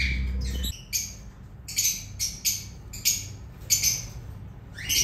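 Lovebirds calling: a rapid series of short, shrill, high-pitched squawks and chirps. A low steady hum underneath cuts off suddenly about a second in.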